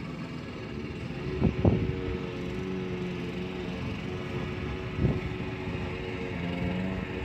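An engine running steadily, its hum holding one pitch, over a background of outdoor noise. Three short low thumps hit the phone's microphone, two close together about a second and a half in and one about five seconds in.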